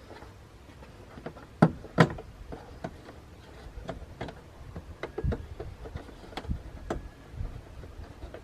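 Plastic parts of the stock air intake being handled and pulled out: two sharp clicks about one and a half to two seconds in, then a run of light taps and knocks.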